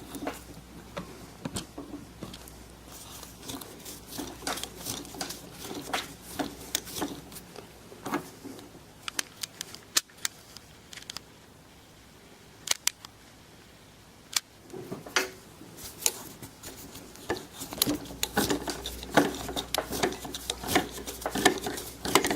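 Irregular clicks, taps and rubbing of tools and wood being handled on a workbench, with a quieter stretch about halfway through and denser handling noise near the end.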